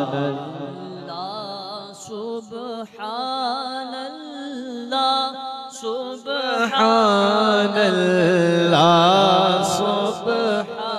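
A man singing a Punjabi devotional verse in long, wavering melismatic phrases, over a steady low held note.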